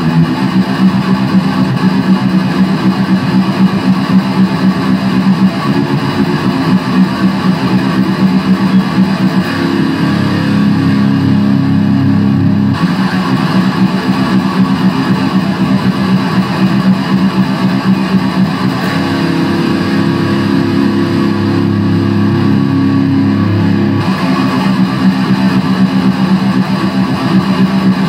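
Epiphone SG Special electric guitar played loud through a Line 6 Spider III amp: improvised heavy-metal playing with fast picked notes, broken twice by chords held for a few seconds, about ten and about twenty seconds in.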